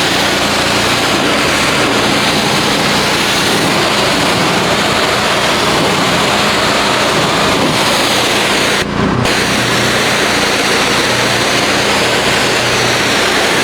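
Pressure washer spraying a steady, loud jet of water, with the machine's motor humming underneath. The spray cuts out for a moment about nine seconds in as the trigger is let go, then resumes.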